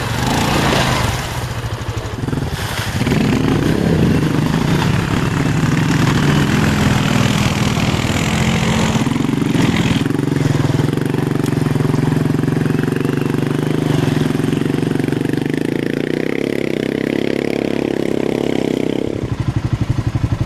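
ATV engine running steadily under throttle, its revs climbing a couple of seconds in and holding. Near the end it drops back to a lower, evenly pulsing idle.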